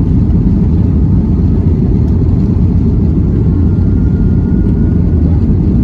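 Cabin noise of a Boeing 737 MAX 9 on its takeoff roll: a loud, steady low rumble from the CFM LEAP-1B engines at takeoff thrust and the wheels running on the wet runway.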